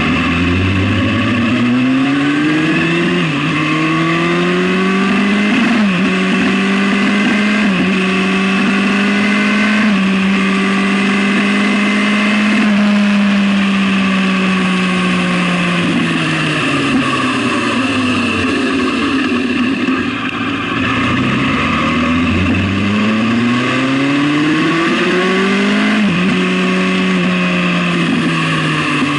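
Sport motorcycle engine pulling hard through the gears, its pitch rising and dropping at upshifts about 3 and 6 seconds in, then holding steady at speed. About halfway through it falls away as the bike slows, then rises again under acceleration with another upshift near the end.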